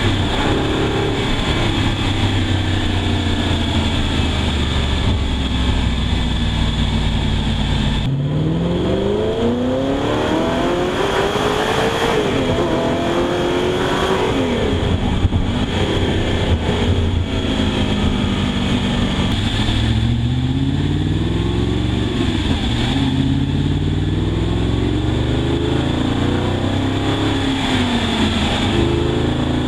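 Audi R8's 4.2-litre V8 engine and exhaust under way, the engine note rising and falling with the revs. The revs drop steadily at first, then climb and fall again, and later climb in several steps with a drop between each, like upshifts through the gears.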